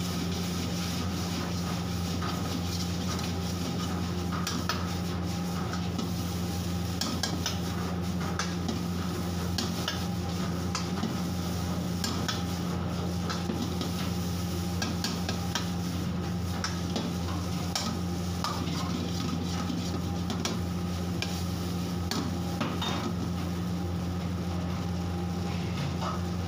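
Steel ladle scraping and clinking against a wok as noodles are stir-fried and tossed, in many irregular strokes, over a steady low hum.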